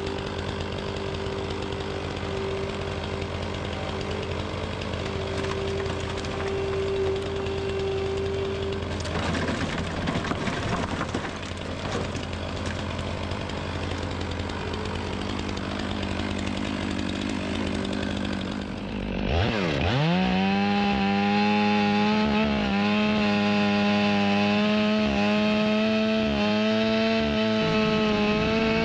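A Bobcat skid-steer loader's engine runs steadily while its grapple carries sawmill slabs. About two-thirds of the way through, the sound switches to a louder chainsaw running at full throttle, cutting through a stack of slabs into firewood.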